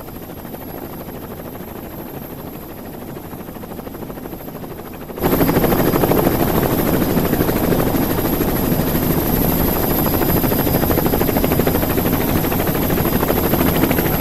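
A steady, rapidly pulsing whirring sound that jumps suddenly louder about five seconds in and then holds steady.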